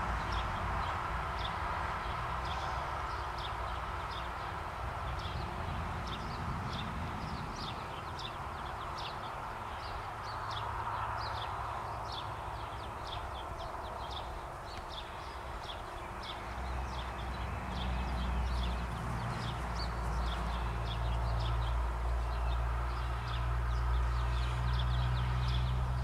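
Outdoor ambience: a steady run of short, high bird chirps over a low rumble that grows louder about two-thirds of the way through.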